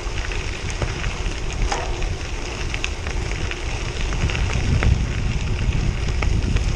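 Gravel bike tyres rolling over a gravel road: a steady crunching rumble with scattered clicks of small stones, and wind noise on the microphone.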